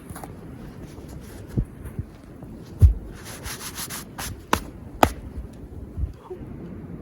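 Scattered dull thumps, the loudest about three seconds in, and two sharp cracks a little after four and five seconds in.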